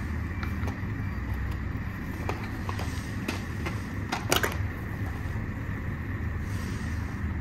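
Steady low hum of room noise with scattered small clicks and taps of handling, the loudest a short clatter a little past the middle.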